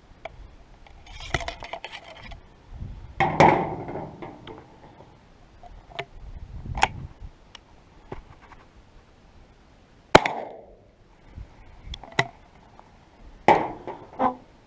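Metallic clicks, clinks and knocks of a single-shot 12-gauge shotgun and its shells being handled, with one sharper, louder crack about ten seconds in.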